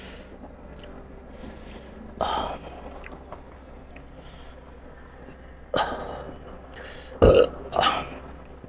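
A man burping several times while eating, short separate burps spread across the few seconds.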